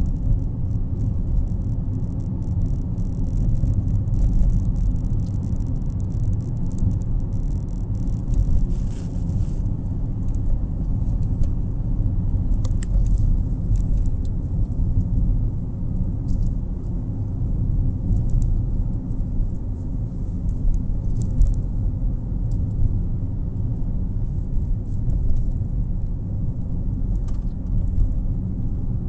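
Steady low road and engine rumble inside a moving car's cabin, with small light rattles and ticks now and then.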